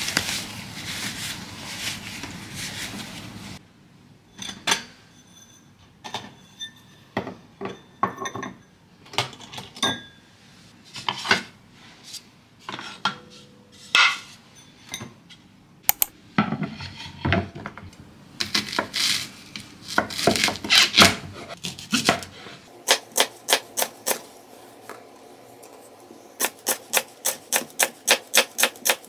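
A rustling noise, then scattered clinks and knocks of dishes and utensils. Near the end, a kitchen knife slices a green onion on a wooden cutting board in quick, even strokes of about four a second.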